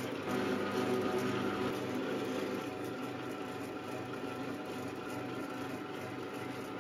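Electric meat slicing and shredding machine running steadily, its motor humming with a low pulse about twice a second while pork is cut into slices and strips; a little louder for the first two seconds or so.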